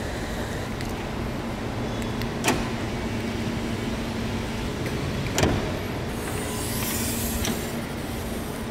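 Steady low background rumble in a parking garage, with two sharp clicks about three seconds apart and a short hiss near the end.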